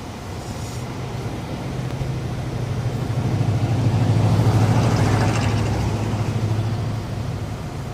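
Car running, its low hum swelling to a peak about halfway and then fading, with a rough grinding texture over it as the wheel is turned: a slight grinding noise that the owner suspects comes from something worn out.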